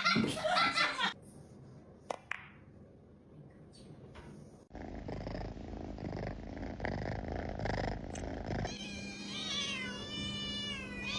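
A domestic cat purring close to the microphone, then a long, wavering meow of about three seconds near the end.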